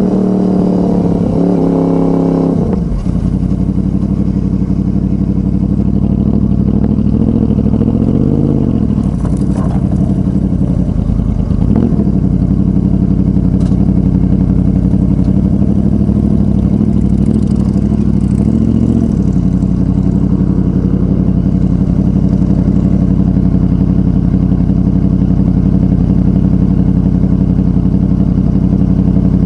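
The V4 engine of a 2006 Honda VFR800 Interceptor, fitted with a Two Brothers Racing exhaust, running on the move. Its revs fall over the first three seconds. It then holds a fairly steady note with a few brief rises and dips, and runs steadily through the last third.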